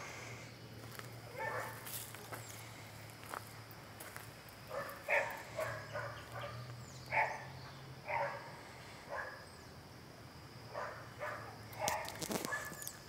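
A dog barking repeatedly, in single barks and quick runs of two to four, over a low steady hum.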